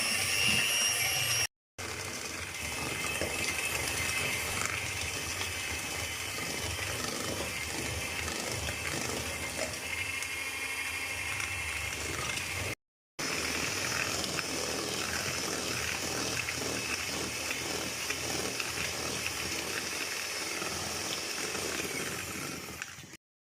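Electric hand beater running steadily at full speed, whisking eggs and powdered sugar in a bowl toward a creamy paste. The sound drops out briefly twice, about a second and a half in and again around thirteen seconds.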